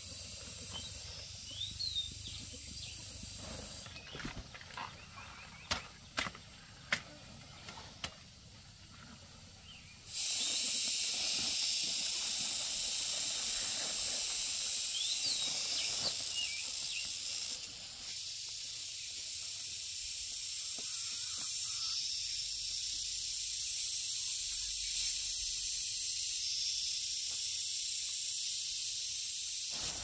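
Steady high-pitched drone of insects, sharply louder from about ten seconds in, with a few short bird chirps. Between about four and eight seconds in come several sharp snaps as fleshy taro stalks are broken off.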